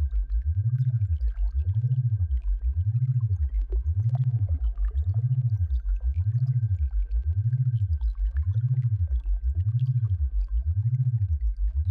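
Electronic sound-therapy tone for tinnitus relief: a deep hum that glides up and falls back about once a second, over and over, with a faint steady high tone and scattered faint ticks above it.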